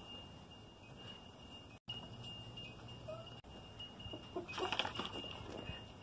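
A short animal call, likely from backyard livestock, about four and a half seconds in over a quiet background with a faint steady high tone.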